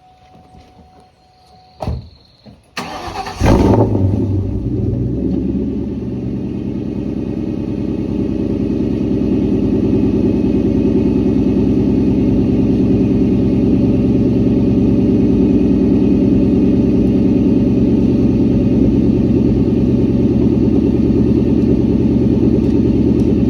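2004 Ford Mustang GT's 4.6-litre V8, fitted with an off-road X-pipe and Borla S-Type exhaust, cranking and firing about three seconds in with a loud flare, then settling into a steady idle. Faint electronic tones and a click come before the start.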